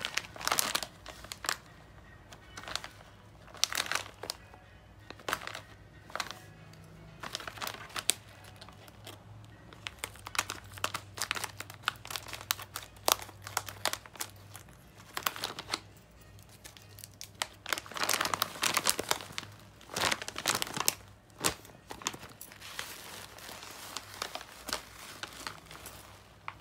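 Plastic barley-tea packet crinkling in repeated bursts as it is handled and cut open with scissors, then the paper tea bags rustling as they are pulled out near the end.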